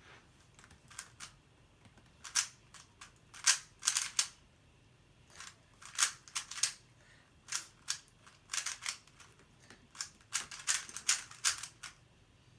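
3x3 Rubik's cube being turned fast by hand in a speedsolve: irregular clicking and clacking of the layers, in quick clusters broken by short pauses.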